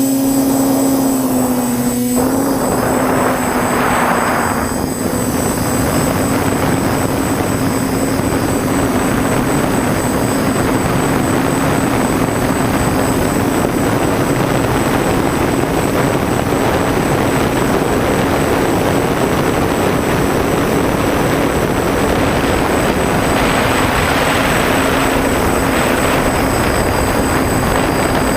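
TBS Discovery quadcopter's electric motors and propellers running in flight: a steady hum over a rushing noise that swells twice, with a click about two seconds in.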